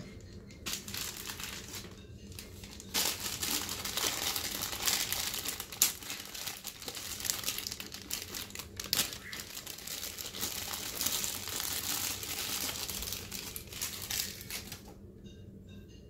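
Clear plastic parts bag crinkling and rustling as it is handled and rummaged through, loudest from about three seconds in until shortly before the end.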